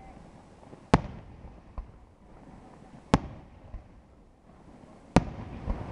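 Aerial fireworks shells going off: three loud, sharp bangs about two seconds apart, each trailing off in echo, with a fainter bang after each.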